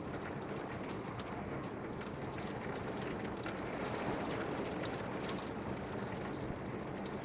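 Torrential rain pouring steadily, with scattered sharp ticks of individual drops over the even hiss.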